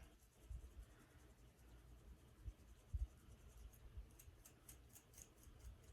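Faint scratching through hair at a dry, flaky scalp, a string of short scratchy strokes that come thickest in the second half. A few soft low bumps from handling come along with it, the clearest about three seconds in.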